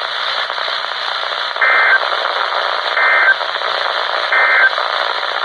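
Three short bursts of NOAA Weather Radio SAME end-of-message data tones, each about a third of a second and roughly a second apart, marking the end of the warning broadcast. They sound over steady weather-radio static hiss.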